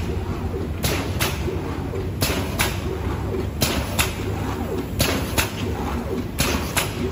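HDK-600ZZD bag-making machine running with a steady low hum, punctuated by a pair of sharp clacks about every one and a half seconds as its pneumatic cylinders stroke down and back up on each bag cycle.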